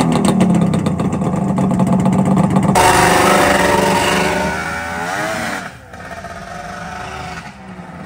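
Three-cylinder two-stroke snowmobile engine running at idle with a rapid, even pulse, then given a couple of short throttle blips that rise and fall in pitch.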